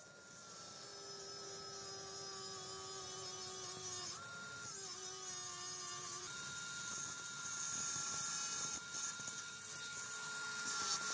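Cordless angle grinder running with a steady whine while its disc cuts into a threaded steel rod. The pitch sags briefly under load about four to six seconds in, and the grinding grows louder.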